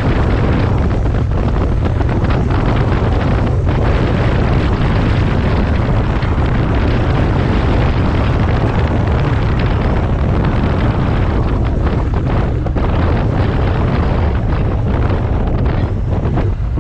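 Triumph 900cc motorcycle engine running at a steady road speed, mixed with heavy wind buffeting on the microphone that sets the deep rumble.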